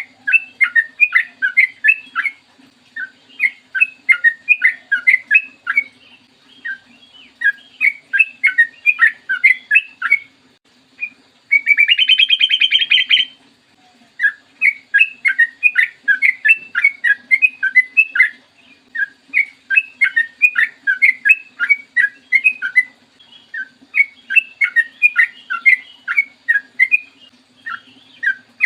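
Yellow-vented bulbul (trucukan) song: repeated phrases of fast, bubbly notes about two seconds long with short gaps. A louder harsh, buzzy trill comes about twelve seconds in. A faint low hum runs underneath.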